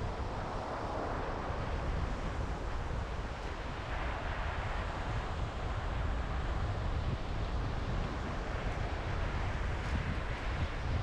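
Strong wind buffeting the microphone in a steady low rumble, with surf washing on the beach behind it.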